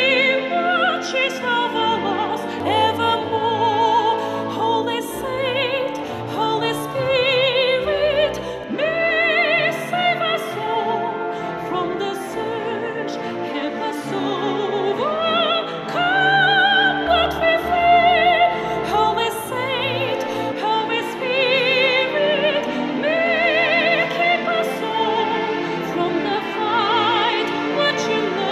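Music playing from a portable Bluetooth speaker, recorded by microphone: operatic singing with a strong vibrato over orchestral accompaniment.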